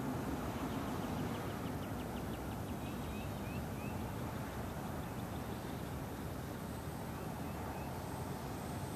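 Steady wind rumble on the microphone. A bird trills in short quick runs through the first few seconds and again briefly near the end.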